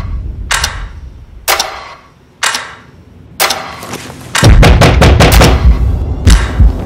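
Action-film trailer soundtrack: single sharp gunshot-like cracks, each ringing briefly, about once a second. About four seconds in, a heavy low boom starts and runs under a rapid volley of shots.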